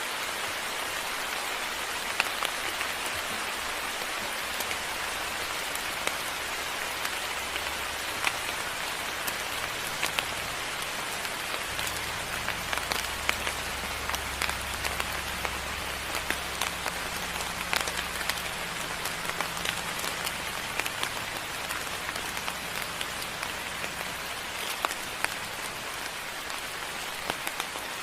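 Steady moderate rain falling, with many individual drops ticking sharply close by. A low rumble joins underneath partway through and fades again near the end.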